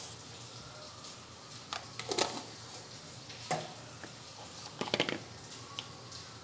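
Plastic sieve of cocoa powder and flour knocking lightly against a plastic mixing bowl a few times as it is handled and begins to be shaken for sifting, the loudest knocks about two and five seconds in.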